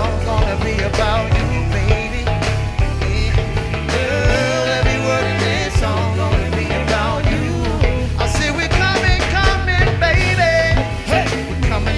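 Live band music: a steady beat with heavy bass, and a wavering melodic line over it.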